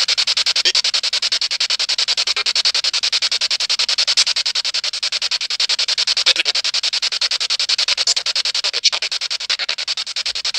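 Rapid, even pulsing static hiss, typical of a ghost box (spirit box) radio sweeping through stations.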